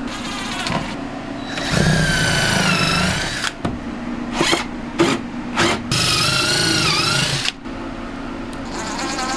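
Electric drill driving screws in two runs of about two seconds each, its motor whine dipping in pitch as the load comes on, with a few sharp knocks between the runs.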